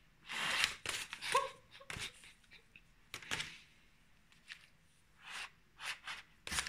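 Short breathy puffs and hisses blown through a rolled tube of wrapping paper, a handful of separate blows spread out, one with a brief hooting note about a second and a half in.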